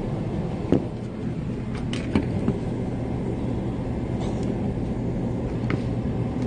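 Steady low background hum, with a few sharp clicks and knocks from the phone and its microphone being handled: one about a second in, one at about two seconds, and one near the end.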